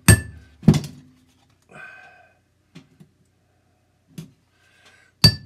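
Hammer striking a hole punch to punch bolt holes through a cardboard gasket laid on a steel plate. Two sharp metallic blows with a ringing tail come near the start, then a few light clicks, then another blow near the end.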